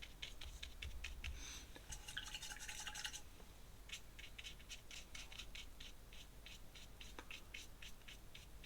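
Faint scratchy strokes of an ink tool working on sketchbook paper. There is a run of quick short strokes, about three to four a second, with a denser stretch of rubbing about two to three seconds in.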